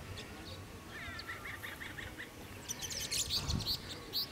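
Birds chirping: a quick run of repeated chirps about a second in, then a busier burst of higher chirps in the second half. A low thump comes near the end.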